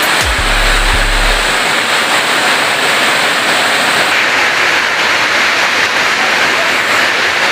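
Heavy rain pouring down, a loud, steady hiss. A low musical bass tone fades out about a second and a half in.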